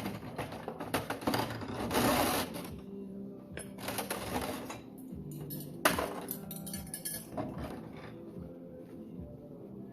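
Dishes and cutlery clinking and knocking together as they are washed by hand, in irregular strikes with a loud knock about six seconds in, over background music.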